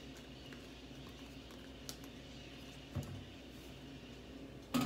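Quiet kitchen with a steady low hum, two faint knocks about two and three seconds in, and a louder clatter of kitchenware near the end.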